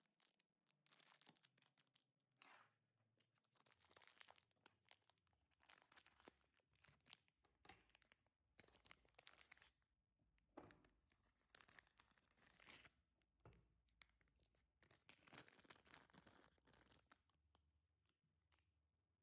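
Biscuit packet being torn open and crinkled by hand, in faint, irregular bursts of tearing and rustling.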